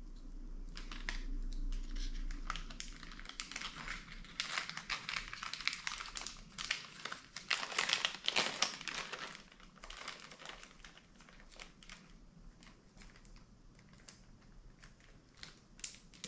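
Small clear plastic bag crinkling as it is handled. It is loudest over a few seconds in the middle and thins to faint rustling later on.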